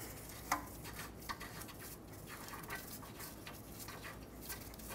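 Faint, scattered light clicks and handling noise of hand work on the exhaust, as the loosened oxygen sensor is unscrewed by hand and its socket taken off. The clearest click comes about half a second in.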